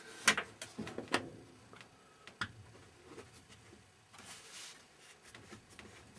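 Black plastic pipe and a 90-degree elbow fitting knocking and clicking as they are handled and fitted together: a few sharp clicks and knocks in the first two and a half seconds, then soft rustling.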